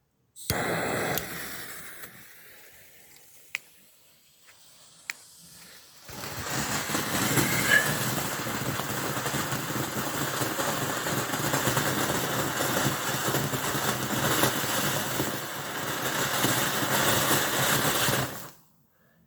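Standard Fireworks 'Stardust' fountain firework spraying with a steady hiss for about twelve seconds, then cutting out abruptly. Before it takes off there is a short fizz that fades away and two sharp clicks.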